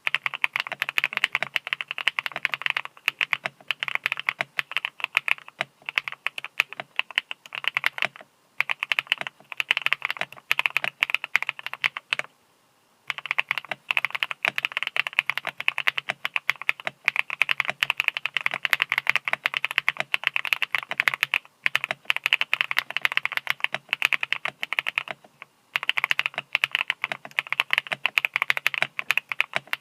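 JamesDonkey A3 gasket-mount mechanical keyboard with a polycarbonate plate being typed on fast and continuously, the keystrokes clacking densely, with a few brief pauses, the longest just under a second about halfway through.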